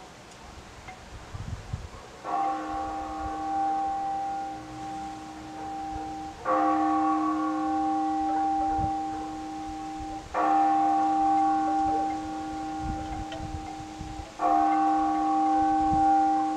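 A large church bell tolling, struck four times about four seconds apart, each stroke ringing on until the next. Faint low rumbles lie underneath.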